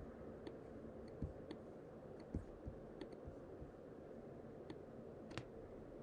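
Several faint, sharp clicks, spaced irregularly, over low room hiss, such as those of a computer being worked with mouse and keys.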